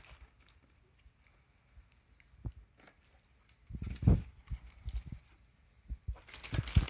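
Handling noise as a cloth top is unfolded and lifted up against the phone: dull bumps and rustling, loudest about four seconds in, with a short crinkle of plastic wrapping near the end.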